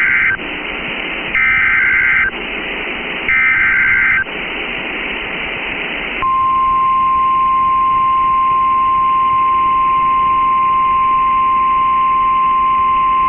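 Emergency Alert System SAME header: bursts of warbling data tones about a second long, with radio hiss between them, encoding a severe thunderstorm warning. About two seconds after the last burst, the steady 1050 Hz NOAA Weather Radio warning alarm tone starts and holds.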